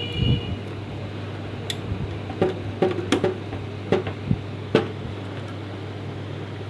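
Light clicks and taps from handling wires and small tools during electrical wiring work, about six scattered strokes over a steady low hum.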